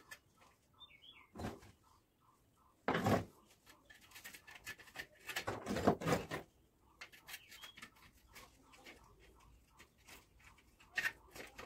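Hand work at a brick wall around a wiring conduit and its fitting: irregular knocks, clicks and scraping, loudest in a burst about three seconds in and a longer stretch around six seconds in. Faint chirps are heard behind it.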